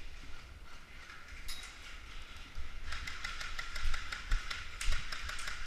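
Rapid, irregular clicking of airsoft gunfire that starts about halfway through, with a few louder knocks among it.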